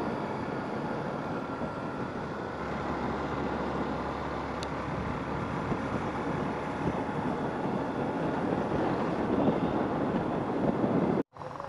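Motorcycle riding along at a steady speed, heard from a camera mounted on the bike: steady engine and wind noise. The sound cuts out for a moment near the end.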